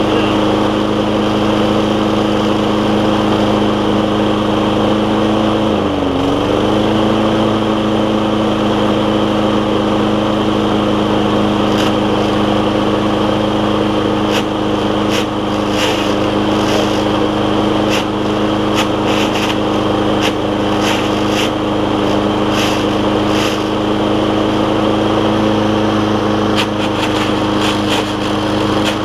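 Kawasaki engine of a Toro commercial walk-behind mower running steadily at speed; about six seconds in it dips briefly in speed and recovers. Scattered light clicks come in the second half.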